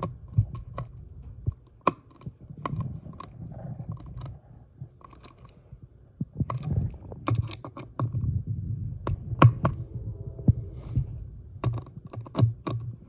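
Screwdriver tightening Phillips screws through a ceiling-fan blade: irregular sharp clicks and ticks of the tool working the screws, over a low rumble.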